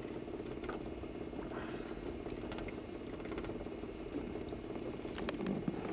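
Boat motor running steadily at low speed, with a few light clicks and knocks near the end.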